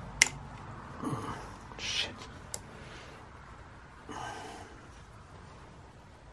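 A sharp click of motor parts knocking together as the armature is worked into the trolling motor housing, then a few hissy exhales of effort and another small click.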